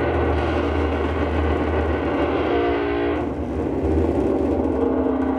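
Amplified electric guitar played as a dense, steady noise drone over a constant low hum. About two and a half seconds in a cluster of held tones rises out of the noise, then the upper texture briefly thins before the drone fills back in.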